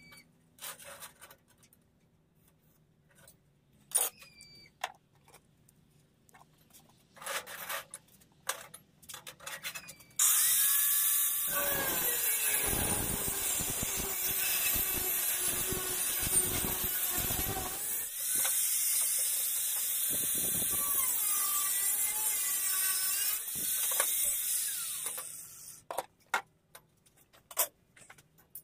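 Angle grinder cutting a steel strip, running loud and steady for about fifteen seconds from about ten seconds in, then winding down. Before it come scattered light clicks and knocks of metal being handled.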